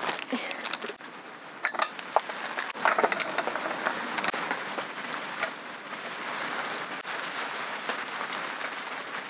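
Ice cubes clinking as they are dropped into a glass, a few sharp clinks with a short glassy ring about two and three seconds in, followed by a steady hiss.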